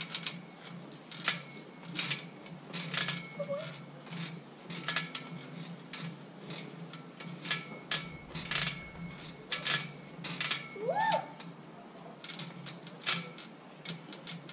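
Metal monkey-bar frame clanking as a child swings hand over hand along the bars: irregular sharp knocks, about one or two a second, each with a short metallic ring.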